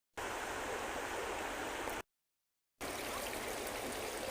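Steady rushing of running water, like a stream, cut off by two short dead-silent gaps: one right at the start and one about two seconds in.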